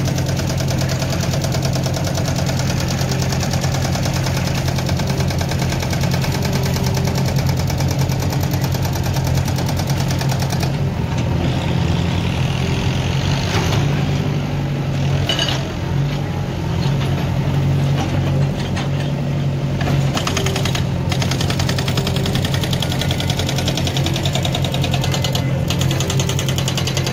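Diesel engine of a JCB 3DX backhoe loader running steadily as it digs, a low even drone with a fine rapid pulse.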